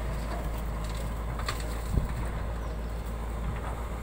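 JCB 3DX backhoe loader's diesel engine running steadily while it works, with a single sharp thump about two seconds in.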